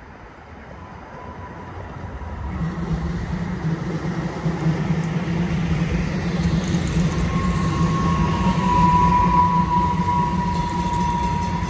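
DART light rail train approaching and passing close by, its running noise growing steadily louder over the first several seconds. A high, steady tone comes in about seven seconds in and holds as the cars go by.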